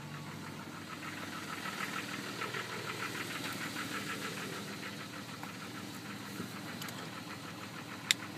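Jeep Grand Cherokee WJ's 4.0 L inline-six idling with a fast, even ticking knock, a noise that the owner is unsure is a problem. A single sharp click near the end.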